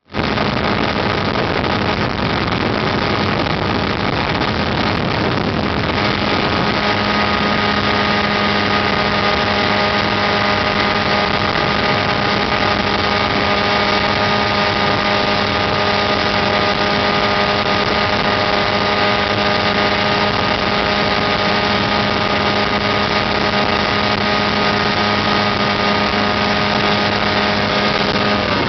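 Outboard motor running at a steady speed, driving a Zodiac inflatable boat, over a constant hiss.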